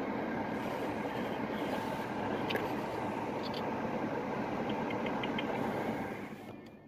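Steady road and engine noise heard from inside a moving car's cabin, with a few faint ticks; it fades out near the end.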